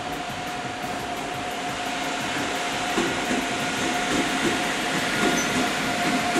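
Rail noise from electric locomotives moving on the tracks: a steady hum over a rumble that grows louder, with a few knocks of wheels over rail joints from about halfway.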